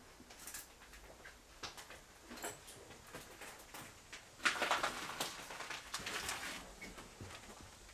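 Footsteps crunching and scraping over debris and broken glass on the floor of an abandoned PCC streetcar, as a scatter of small clicks with a louder stretch of crunching about halfway through.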